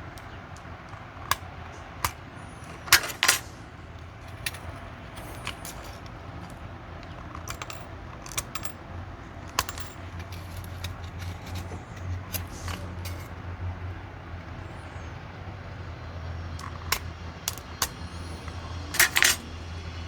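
Thin nickel battery strip being snipped and handled, giving scattered sharp metallic clicks and clinks, with a louder double click about three seconds in and another near the end. A steady low hum runs underneath.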